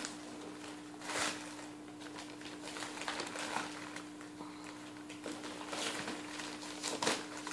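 Shiny wrapping paper rustling and crinkling in short, irregular bursts as a wrapped gift box is handled and its ribbon pulled, over a faint steady hum.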